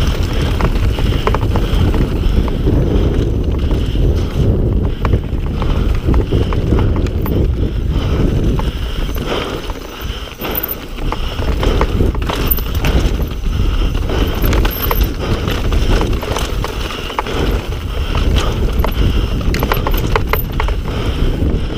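Mountain bike riding a rough downhill trail: the tyres and frame rattle and clatter over stones in quick irregular knocks, with a steady rumble of wind on the microphone. It eases off briefly about ten seconds in.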